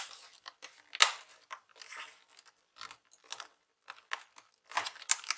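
Plastic screw-cover strip above a Toshiba Satellite C655 laptop keyboard being pressed down into place, its clips snapping in with irregular sharp clicks and crackles. The loudest snap comes about a second in, and a quick cluster follows near the end.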